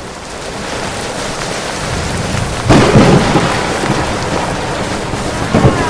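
Steady rain, swelling in, with a loud thunderclap a little under three seconds in.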